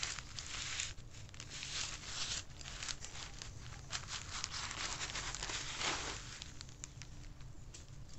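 Black plastic mulch film crinkling and tearing in irregular rustles as a hand-held bulb planter is pushed through it into the soil to cut a planting hole.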